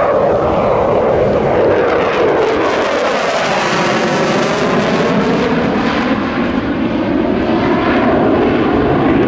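Dassault Rafale C fighter's twin Snecma M88 turbofan engines at high power during a display manoeuvre: loud, continuous jet noise whose tone sweeps slowly up and down as the jet turns overhead.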